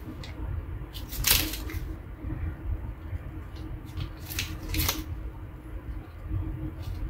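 Plastic blister packaging of a brush pen crinkling as it is handled and turned over, in a few short crackly bursts, the loudest about a second in, over a steady low hum.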